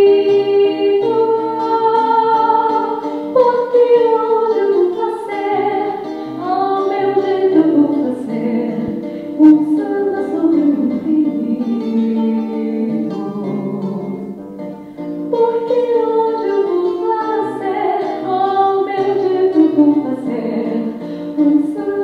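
A woman singing into a microphone with acoustic guitar accompaniment, her voice holding long notes that slide between pitches.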